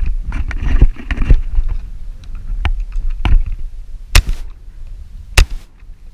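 Wind buffeting the microphone, then two close shotgun shots a little over a second apart. A couple of lighter knocks come shortly before the shots.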